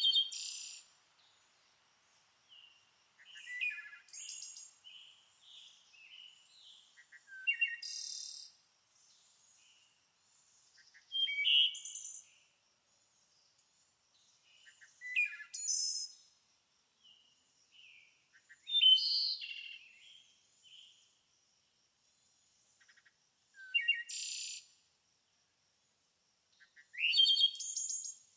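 Songbird singing: short, busy phrases of high chirps and trills, each opening with a quick rising note, repeated about every three to four seconds with quiet gaps between.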